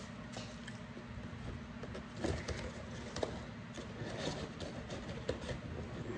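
Rustling and scattered light clicks of a cardboard Happy Meal box being rummaged through and a small item pulled out of it.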